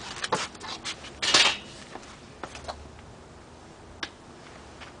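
Handling noises: several light clicks and knocks, with a short, louder hissy rustle about a second and a half in.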